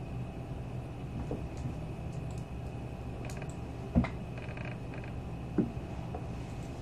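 Quiet, steady low hum with two short sharp clicks, about four seconds in and again a second and a half later.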